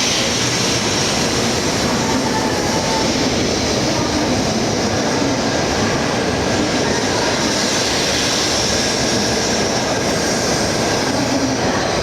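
Doctor Yellow, the 923-series Shinkansen inspection train, departing the station: a steady noise of its wheels and running gear.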